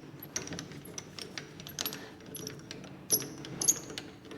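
Mini lathe carriage being cranked along the bed by hand: irregular metallic clicks and ticks with brief high rings as the gear meshes with the toothed rack, a couple of louder clacks about three seconds in. The gear is still slightly tight in one spot where a weld seam on the teeth had been catching it.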